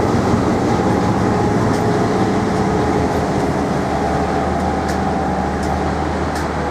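Class 319.3 diesel-electric locomotive running close by: a loud, steady engine drone with several held tones, over the rolling noise of the train.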